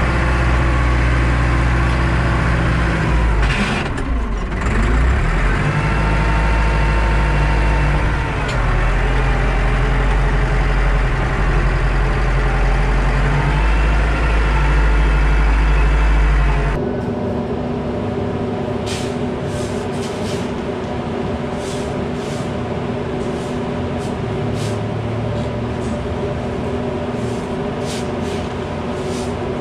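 Tractor engine running steadily under load while its front loader pushes grain, with the engine pitch shifting briefly about 3 to 5 seconds in. About 17 seconds in, the sound cuts to a quieter steady machine hum, with repeated scrapes of a shovel working through the grain.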